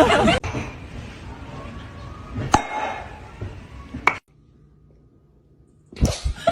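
A single sharp clink that rings briefly, about two and a half seconds in, then a second short tap near four seconds, over a low background hiss.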